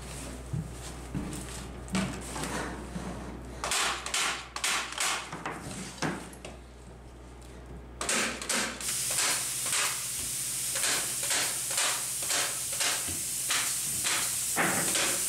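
Staple gun driving 1/2-inch crown staples through insulation netting into wooden wall studs: a run of sharp shots, a few at a time at first, then about two a second. A steady hiss joins about eight seconds in.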